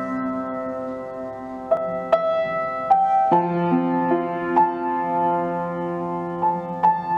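Slow, soft piano background music of held notes and chords, with a new chord about three seconds in.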